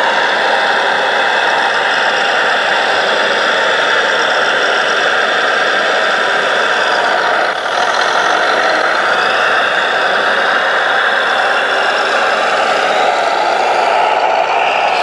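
Sound module of a scale RC Volvo L250G wheel loader playing a diesel engine running steadily through a small speaker while the loader scoops and carries soil.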